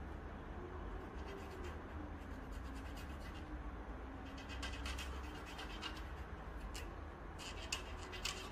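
Light scratching and clicking of hands working on parts of a 3D printer, in quick clusters about halfway through and again near the end, over a steady low hum.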